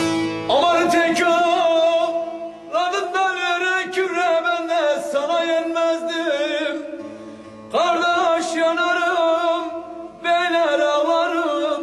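Background music: a male voice singing a wavering, ornamented melody in phrases of several seconds, over sustained instrumental tones.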